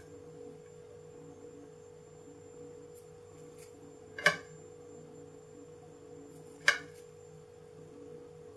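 Metal fork cutting through soft cake and clinking twice against a ceramic plate, about four seconds in and again near seven seconds. A steady faint hum runs underneath.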